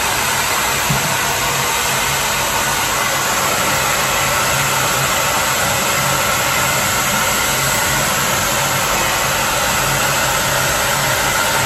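Handheld hair dryer running steadily, blowing air onto a wet dog's coat, a constant rush of air over a low motor hum.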